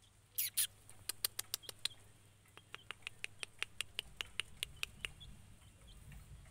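Domestic chick peeping: two loud, high peeps sliding down in pitch, then a rapid run of short high peeps, about five a second, for some four seconds.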